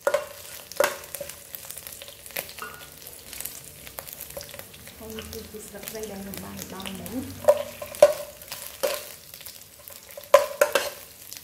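Garlic and lemongrass sizzling in a nonstick wok while a metal ladle stirs them, knocking and scraping against the pan. The knocks come several times, loudest in a cluster near the end.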